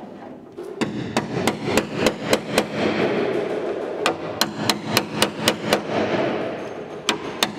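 Hammer striking a hand chisel in quick, regular blows, about four a second, as the chisel cuts along the lower edge of a BMW 507's body panel. The blows come in two runs with a short pause between them, and two more fall near the end, over a steady background noise.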